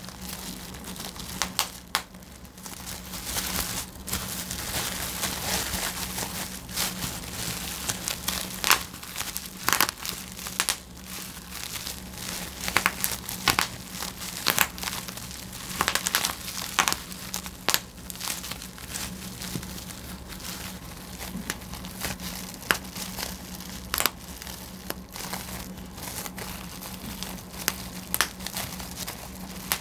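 Plastic bubble wrap being squeezed and popped by hand: irregular sharp pops, often several in quick succession, amid the crinkling of the plastic sheet, over a steady low hum.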